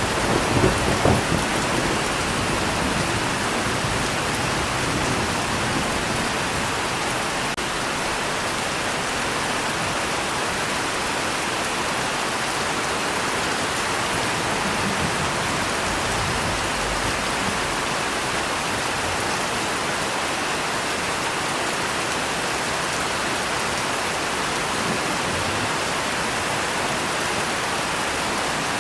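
Steady, even rain with a roll of thunder dying away in the first second or so.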